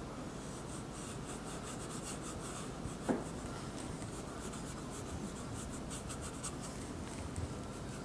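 Paintbrush laying oil paint on the painting in many short strokes, a soft scratchy brushing, with one brief knock about three seconds in.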